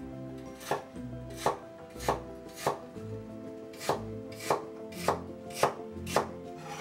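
Kitchen knife slicing lotus root into thin rounds on a wooden cutting board: about nine crisp chops, roughly two a second, with a short pause about three seconds in.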